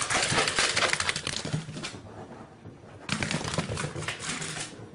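Rapid clicking and rattling in two stretches, with a short lull a little past the middle.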